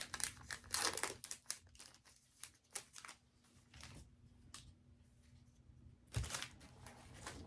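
Trading-card pack wrapper and cards being handled: irregular crinkling and light clicks, busiest in the first second or so, with a louder rustle and a soft thump about six seconds in.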